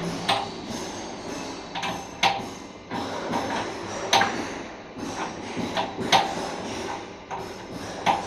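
Sharp knocks and taps, about six of them a second or two apart, each with a short ring.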